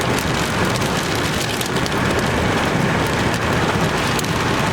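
Rain falling on a car's roof and windshield, heard from inside the cabin: a steady hiss with scattered drop ticks.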